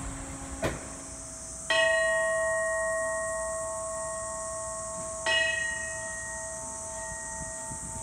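Small hanging bell with a rope pull, struck twice about three and a half seconds apart; each strike rings on with a few clear tones that slowly die away.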